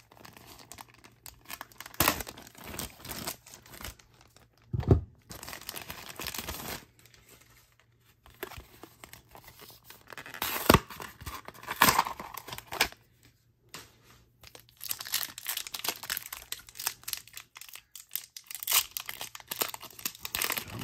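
Clear plastic bag and a foil-wrapped trading-card booster pack crinkling and tearing as they are opened by hand. The sound comes in irregular bursts with a few sharp clicks.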